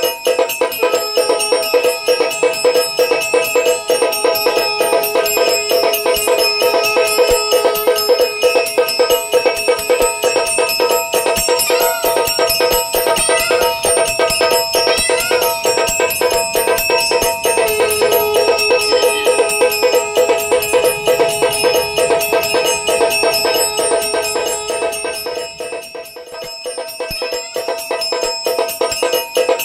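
Electric aarti machine's brass bell struck rapidly and continuously by its mechanical striker, ringing steadily with many strokes a second. The ringing dips briefly near the end, then picks up again.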